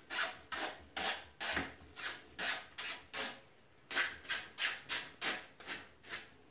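Gloved hands turning the slip nut on a chrome basin bottle trap to tighten it by hand: short scraping strokes of glove and metal threads, about three a second, with a brief pause midway.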